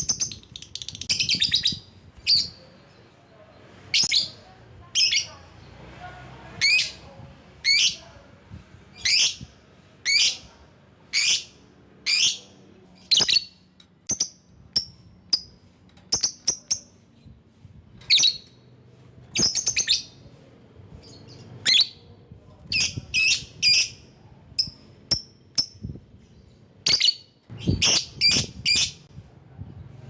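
Lovebird calling: short, sharp, high-pitched chirps about once a second, with a quick chattering run at the start and faster clusters of chirps near the end.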